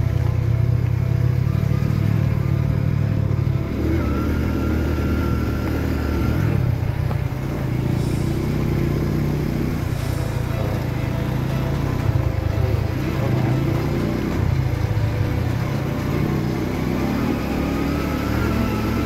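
Motorcycle engine running steadily at low speed over a rough track, its pitch shifting up and down a few times with the throttle.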